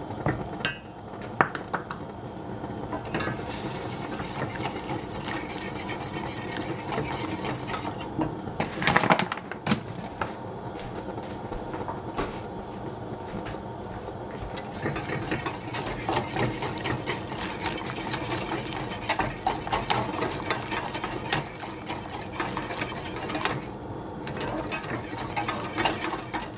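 Wire whisk stirring hot chocolate in a stainless steel saucepan, its wires scraping and clicking against the metal pan. The whisking grows brighter and a little louder about fifteen seconds in, with a short pause near the end.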